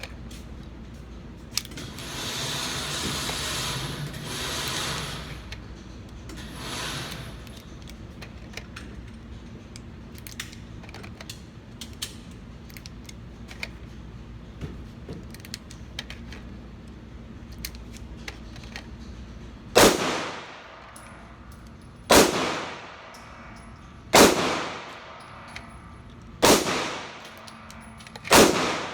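Glock 19 Gen 5 9mm pistol fired in slow aimed shots: five loud shots about two seconds apart in the last third, each followed by a ringing echo. Before them there are only faint scattered pops and a brief rushing noise.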